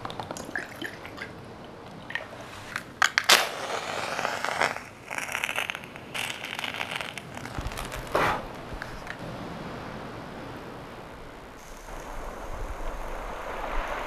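Ethanol being handled and poured into a small brass alcohol burner: a couple of sharp clicks, a few seconds of pouring, then a single sharp strike about eight seconds in as the burner is lit. A steady low rushing sound follows to the end.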